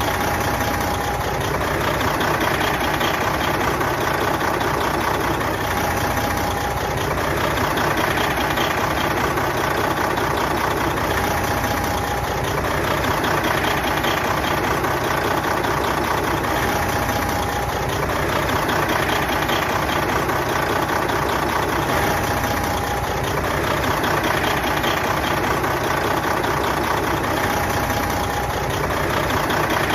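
Big truck diesel engine idling steadily, with no revving. A short, faint high tone comes back about every five and a half seconds.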